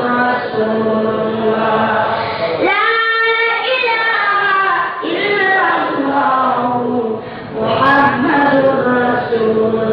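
A child's high voice singing a long, drawn-out melodic chant, holding notes and sliding between pitches, with a rising glide about three seconds in.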